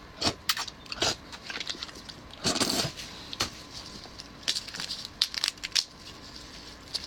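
Cooked shrimp shell being cracked and peeled apart by hand: a series of sharp cracks and crackles, with a longer crunching rustle about two and a half seconds in.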